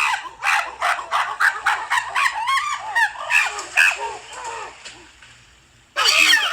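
Birds giving rapid, short rising-and-falling calls that thin out and fade about five seconds in, followed by a fresh loud burst of calls near the end.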